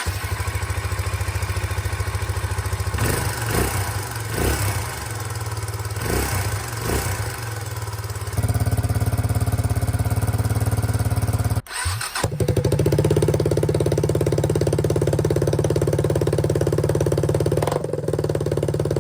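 Suzuki DR250 SHC single-cylinder four-stroke motorcycle engine running through its exhaust. It is blipped up a few times about three to seven seconds in, then settles to steady running. A short break near the middle, after which it runs steadily again.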